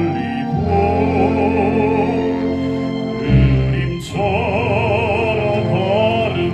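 Baritone singing held notes with a wide operatic vibrato over sustained instrumental accompaniment, with a short break about four seconds in.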